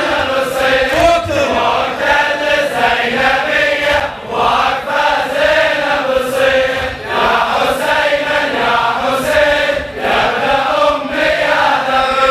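Men's voices chanting a Shia Muharram lament (latmiya) together, phrase after phrase with short breaks between lines.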